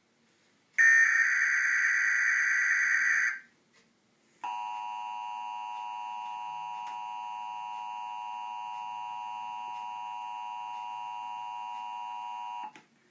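Emergency Alert System tones opening an AMBER Alert broadcast: about a second in, a loud burst of digital header data lasting some two and a half seconds, then after a short gap the steady EAS two-tone attention signal, held for about eight seconds.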